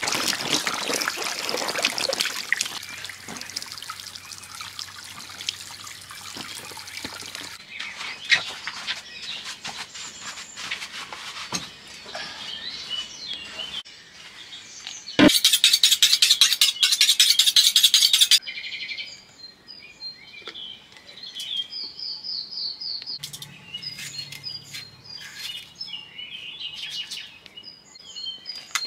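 Birds chirping over a string of food-preparation sounds: a steady rush like running water at first, then clatter, and about halfway through a loud rattling noise that lasts about three seconds before stopping abruptly.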